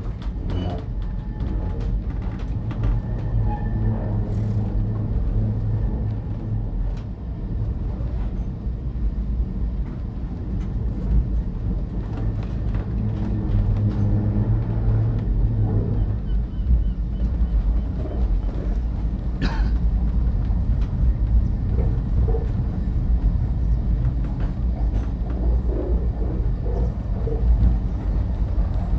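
Great Orme Tramway cable-hauled tramcar running down its track, a steady low rumble with scattered rattles and clicks. A low hum is in the sound for the first half and fades out, and there is one sharp clack about two-thirds of the way through.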